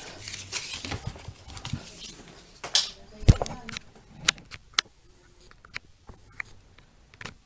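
Hands handling a plastic spinning-top toy and its packaging: rustling and clicking for the first three seconds or so, then scattered light clicks and taps.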